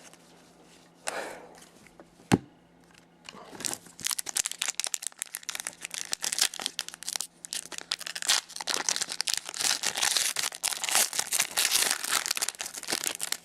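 Foil wrapper of a hockey card pack crinkling and tearing as it is opened by hand, a dense crackly rustle that starts about three seconds in. Before that there is a single sharp click.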